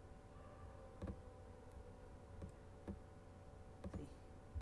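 A few separate computer mouse clicks over a faint steady electrical hum.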